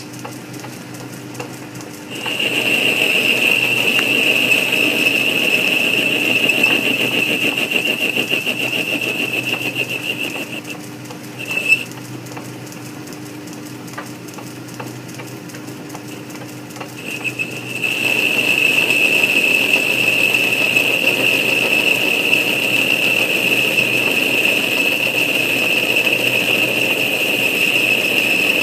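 South Bend lathe running while a carbide-insert tool takes a light cut on the end of a turned arbor. The cut gives a steady high-pitched squeal that starts about two seconds in, drops out for several seconds midway apart from a short chirp, and resumes near the two-thirds mark.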